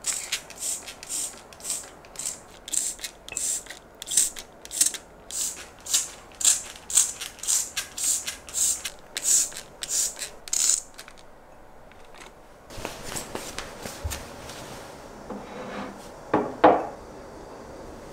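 A spray bottle misting water into a glass terrarium jar: about twenty quick spritzes, roughly two a second, stopping after about eleven seconds. Soft handling noise and a knock follow near the end.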